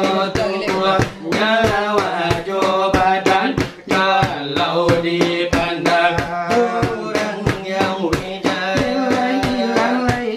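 Salawat dulang: sung Minangkabau verses chanted over a quick, steady beat struck with the fingers on a dulang tray.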